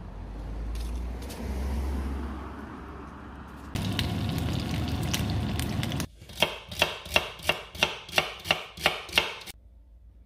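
Low rushing noise, then the hiss of peppers sizzling in oil in a frying pan, then about nine sharp, evenly spaced chopping strokes, roughly three a second, that stop near the end.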